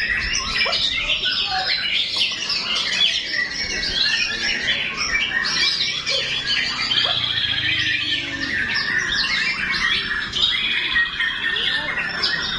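White-rumped shama (murai batu) in full song: a continuous stream of quick, varied whistled phrases, with fast rattling trills about halfway through and again near the end.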